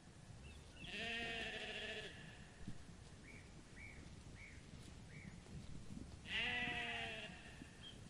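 Sheep bleating: two long wavering bleats, one about a second in and another about six seconds in, with four short, faint high chirps between them.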